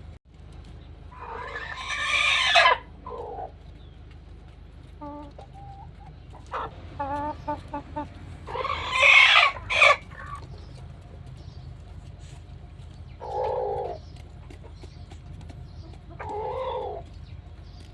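Rooster giving two loud, drawn-out calls, with a run of short clucks between them and two softer calls near the end. It is the strange call that roosters make when they sense something odd or feel danger, which seems to be a warning.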